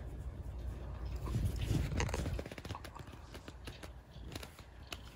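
A hand scratching a kitten's fur close to the microphone: a low rubbing rumble for about the first two seconds, then quieter scattered clicks and ticks.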